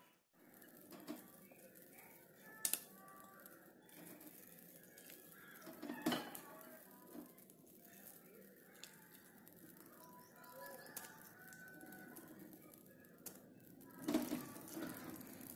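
Mostly quiet, with a few scattered soft knocks and plops as fish pieces are placed into tomato gravy in a clay pot. There is a sharp click about two and a half seconds in and louder knocks about six seconds in and again near the end. Faint short chirps sound in the background.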